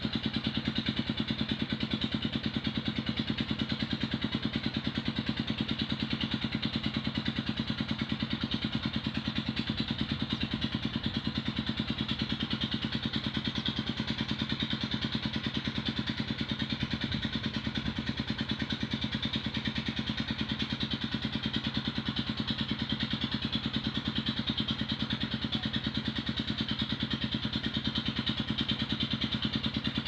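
An engine running steadily at idle, with an even, rapid beat.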